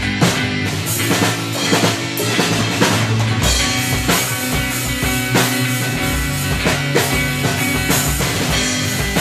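Rock band playing: a drum kit keeps a steady beat under guitars.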